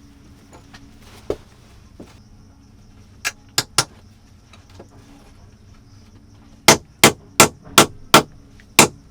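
A hand tool striking repeatedly with sharp, ringing blows. One blow comes first, then a quick group of three, then a loud, steady run of about three strikes a second starting near the end.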